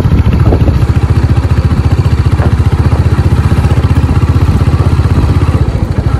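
Motorcycle engine running steadily while under way, a fast, even low pulsing throughout, with some clatter from the rough dirt road.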